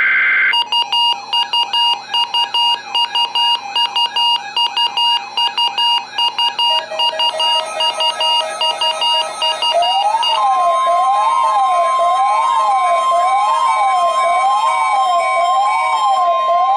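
Layered electronic alarm sounds. A steady tone breaks off about half a second in and gives way to rapid beeping on several pitches. About ten seconds in a siren joins, rising and falling about once a second over a steady high tone.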